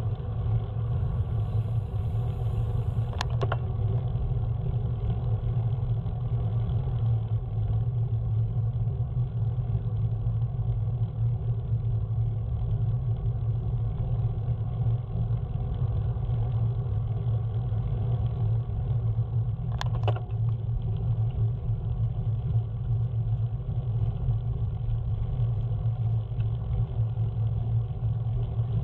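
Steady low rumble of a car on the move, with an unbroken drone of engine and road noise. Two brief clicks sound, one about three seconds in and one about twenty seconds in.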